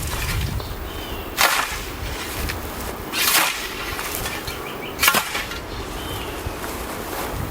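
European scythe (Marugg) swishing through tall weeds and grass, three strokes a little under two seconds apart.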